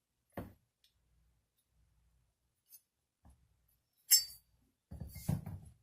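Small steel gun parts being handled at a workbench while reassembling an AR-15 bolt's ejector: a few soft knocks, one sharp ringing metal clink about four seconds in, then a rumble of parts being handled near the end.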